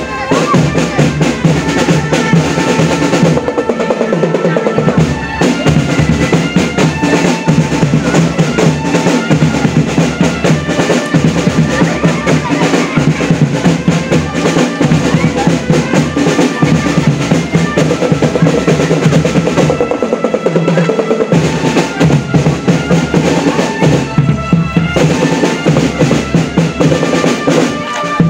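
Marching drum band playing: snare drums rolling and bass drums beating, with a melody of held notes over the drums.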